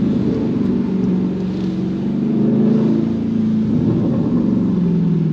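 The 392 Hemi V8 exhaust of a 2022 Dodge Charger Scat Pack under throttle while driving: the engine note climbs in the first second, holds, then falls away near the end as the driver eases off.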